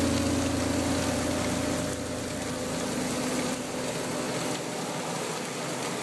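Steady hiss of high-pressure water spray from a sewer-jetting nozzle blowing out through a storm-drain opening, with background music tones fading out over the first couple of seconds.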